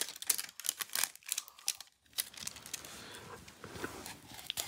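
Packaging crinkling and tearing as a mulled-wine spice pack is opened: a dense run of sharp crackles for about two seconds, then a softer rustling.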